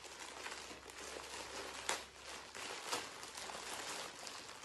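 Parcel packaging crinkling as it is handled and opened, with a couple of sharper crackles about two and three seconds in.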